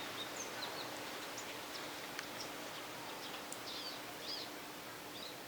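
Faint steady hiss with scattered short, high chirps like small birds, and a couple of light ticks.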